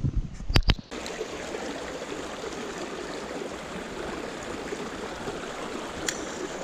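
Small creek flowing steadily over rocks, a continuous rushing trickle. A couple of sharp knocks come in the first second, before the water sound sets in.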